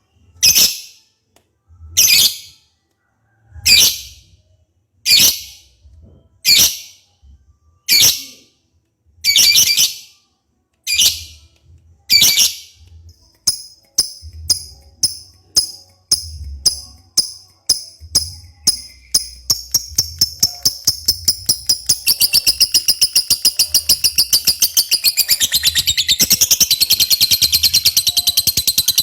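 Lovebird calling: sharp, high chirps about every second and a half. About halfway through they start coming faster and faster, and they run together into a rapid, continuous chatter near the end.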